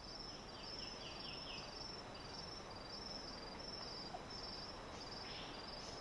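Faint tropical forest ambience: insects chirping in a steady, high, pulsing rhythm, with a short run of about six quick notes in the first two seconds and a brief sweep near the end.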